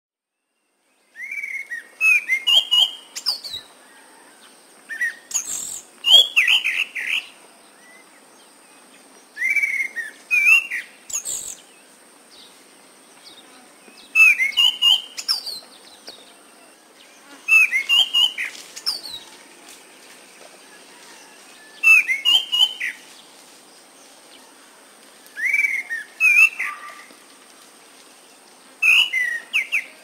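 Orange-banded thrush (Timor ground thrush) singing. It starts about a second in, then gives short phrases of several quick whistled notes, repeated every three to four seconds.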